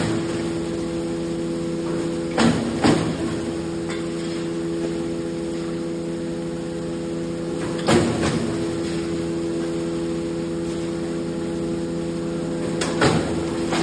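Wood crusher running with a steady motor hum. Four short, loud bursts of crushing noise as material goes through it: two close together about two and a half seconds in, one near eight seconds, and one near the end.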